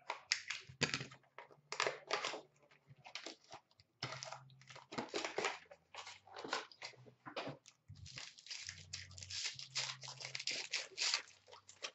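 Foil hockey-card pack wrappers being torn open and crinkled by hand, in a quick, irregular run of rustles and rips with a couple of short pauses.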